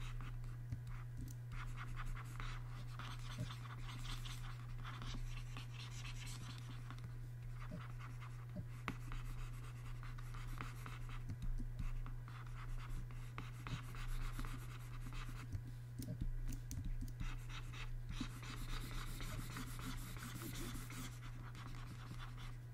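Stylus of a Wacom pen tablet scratching across the tablet surface in repeated brush strokes, in stretches of a few seconds with short pauses. A steady low hum lies underneath.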